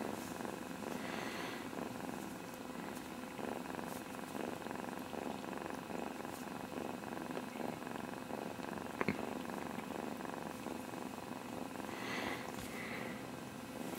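Kitten purring steadily, close up, with one sharp click about nine seconds in.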